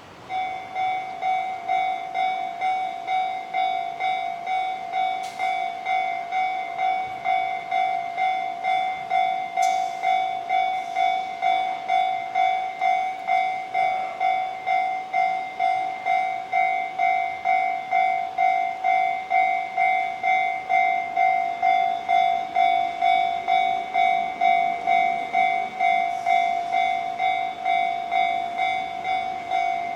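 Japanese level-crossing electronic warning bell switching on suddenly and ringing a steady metallic ding about twice a second. It is the signal that a train is approaching the crossing.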